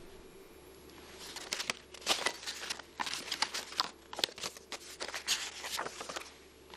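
Paper rustling and crinkling as old letters and photos are handled, a run of short crackly rustles that starts about a second in and stops shortly before the end.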